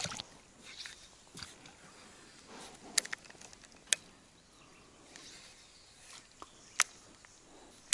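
Three sharp clicks over faint rustling: two about a second apart, then a third about three seconds later.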